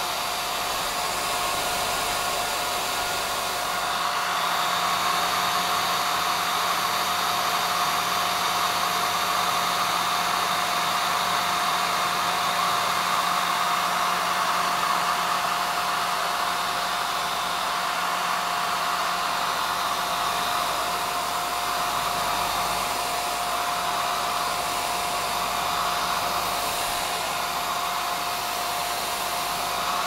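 Rowenta hair dryer running steadily: an even rush of air with a thin steady tone running through it.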